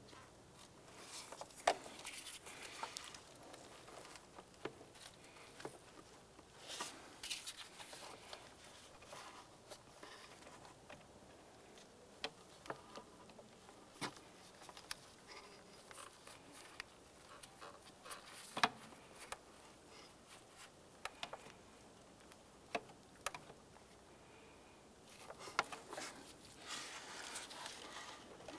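Quiet, scattered clicks and light metal taps of a wrench and a coolant tube fitting being worked under an engine's throttle body, with soft rustling of gloved hands and rubber hoses, heaviest near the end.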